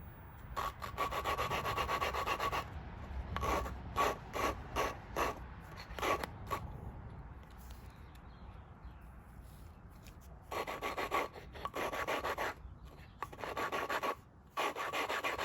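Engine valve being lapped into its seat by hand with a valve lapping tool and grinding compound, under light pressure. Gritty rasping of valve face on seat in spells of back-and-forth twisting, with a pause of a few seconds in the middle. This is the grinding that beds the valve in so it seals.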